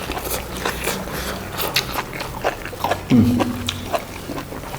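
Close-miked chewing of boiled buffalo innards, with many short wet clicks and smacks of the mouth. A brief hummed voice sound comes about three seconds in.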